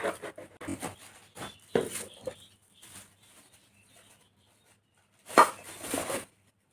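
Parcel packaging being handled: scattered rustles and taps, with a louder rustle about five and a half seconds in.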